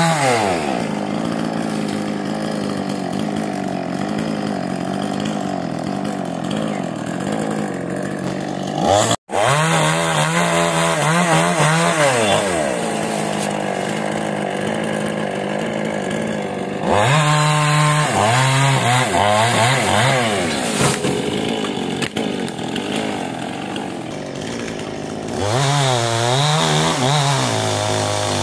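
Chainsaw running at full throttle, its engine pitch repeatedly rising and falling as it cuts into a tree. The sound drops out for an instant about nine seconds in.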